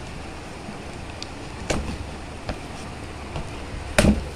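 Cardboard box being opened: a blade working along the packing tape, a few sharp scrapes and cracks, and the loudest rip about four seconds in as the flaps come apart. A steady background hum runs underneath.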